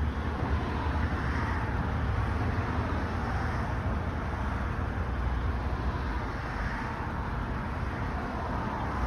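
Steady road and engine rumble inside a moving car's cabin, even and unchanging.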